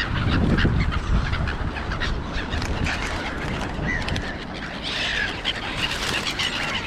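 A flock of gulls calling, a scatter of short squawks and cries. A low rumble sounds in the first second and a half.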